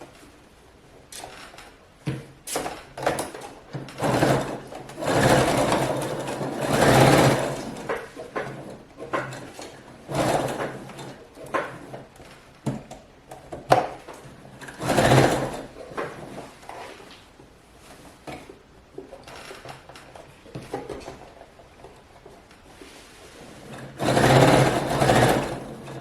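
Sewing machine stitching in a zipper, running in several short runs (the longest about two seconds) with a steady motor hum, separated by sharp clicks.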